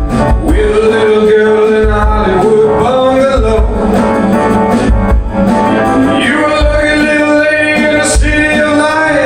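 Loud live band playing through the club's PA, with drums, guitar and a sung vocal line over a steady kick-drum beat.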